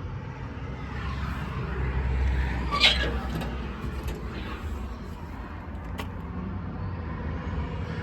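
Steady low engine rumble, a little louder about two to three seconds in. A short sharp squeak or clank comes near three seconds, and a brief click near six.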